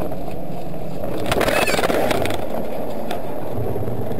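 Steady car engine and tyre rumble heard from inside a moving car, with a brief burst of knocks and clatter about a second and a half in.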